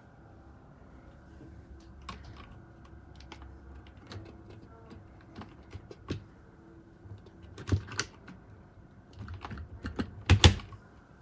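Keys of a Razer Tartarus Pro gaming keypad being pressed, an irregular run of key clicks. The presses get louder near the end, where there is a quick cluster of the loudest clicks.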